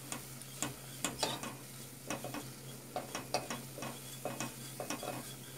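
A wire whisk stirring and scraping flour toasting in melted margarine in a stainless steel pot, its wires clicking and ticking irregularly against the metal several times a second. Under it the flour and fat sizzle faintly.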